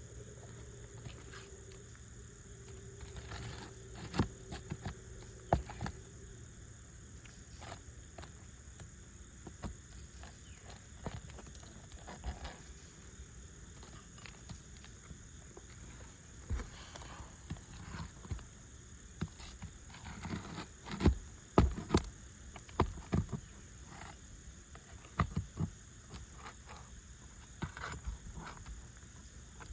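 Irregular taps, knocks and scrapes of a metal roof-snake nail puller working under asphalt shingles to pry out nails, with the loudest knocks bunched about two-thirds of the way through.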